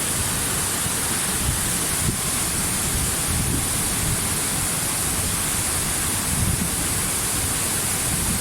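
Waterfall water rushing in a steady hiss, with uneven low rumbling underneath.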